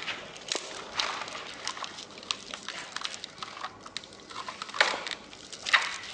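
A bundle of dry reeds crackling and creaking as a twisted fibre rope is wrapped around it and pulled tight. It goes as irregular sharp crackles and rustles, with the loudest crunches near the end.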